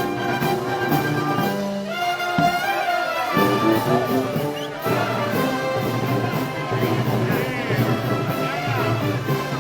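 Brass band music: trumpets and trombones playing held melodic notes over a steady beat.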